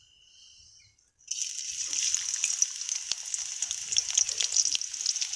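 Chopped onion hitting hot oil in a karahi: a sudden sizzle about a second in, which carries on as a steady frying hiss full of small crackles.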